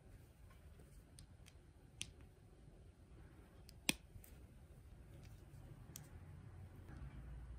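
LEGO bricks clicking as gloved fingers press plastic plates and brackets together: a few soft, scattered clicks, the sharpest about four seconds in.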